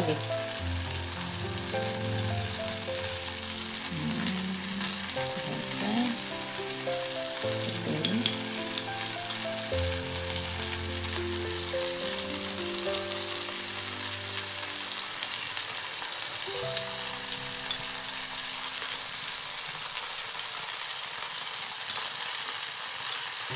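Whole prawns sizzling steadily in a non-stick frying pan over a low gas flame as sauce is brushed onto them, with background music underneath.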